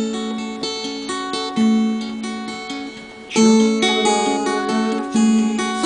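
Acoustic guitar and a Dobro resonator slide guitar playing an improvised opening: plucked notes ringing out one after another, with a brief sliding note a little over three seconds in.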